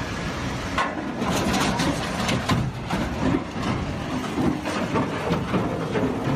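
A heavy engine running, with a jumble of knocks and clatters starting about a second in.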